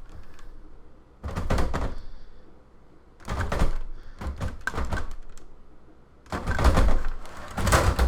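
Metal computer-case side panel clattering and knocking against the case as it is worked into place, in three bursts of rattling knocks.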